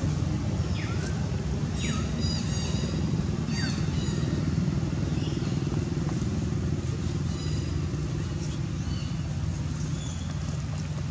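A steady low motor drone, like an engine running nearby, with several short high-pitched chirping calls over it that slide down in pitch, most of them in the first few seconds and fainter ones later.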